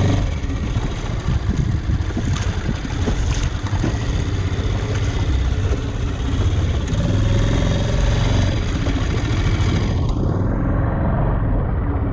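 Inflatable dinghy's outboard motor running steadily under way, with water rushing along the hull.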